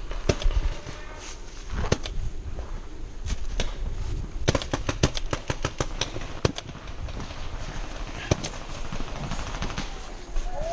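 Paintball markers firing in scattered single pops, with a quick string of shots in the middle.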